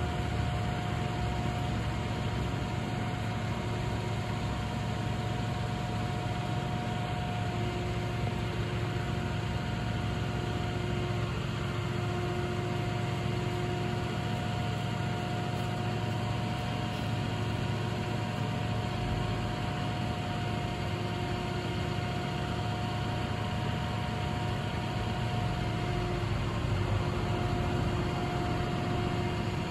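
Boom truck crane's engine running steadily to power the crane's hydraulics as the GIUFFRE telescopic boom extends and lowers, with a steady hydraulic whine over the engine's drone that breaks off briefly now and then.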